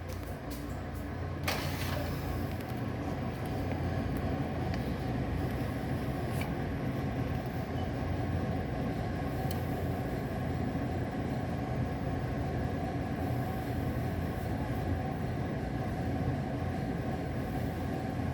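One sharp metallic bang about a second and a half in, ringing briefly, over a steady low rumble, with a few fainter knocks later on.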